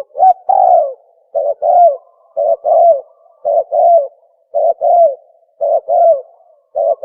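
Recorded spotted dove (tukmo) call played as a hunting lure: a short note followed by a longer, downward-bending coo, repeated seven times at about one phrase a second.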